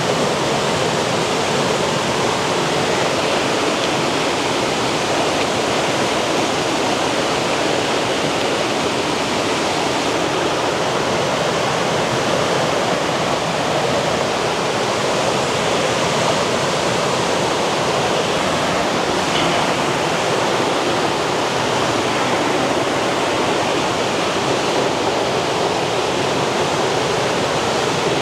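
Rushing water of a forest stream, a steady, even noise that does not let up.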